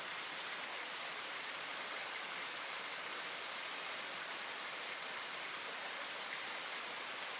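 Falling water from a waterfall, a steady rushing hiss, with a couple of faint, brief high chirps near the start and about four seconds in.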